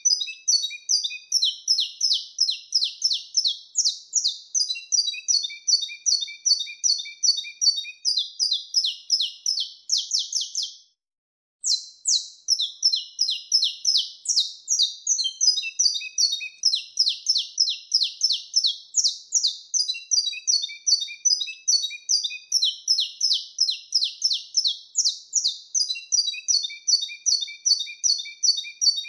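Saffron finch (canário-da-terra) singing its wild-type 'mateiro' song: a continuous run of rapid, sharp, high chirping notes in repeating phrases, with one brief silence about eleven seconds in.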